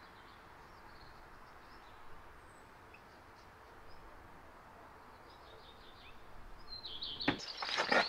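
Quiet outdoor background with birds chirping now and then. Near the end, a quick run of chirps and a rising series of sharp knocks and clatter.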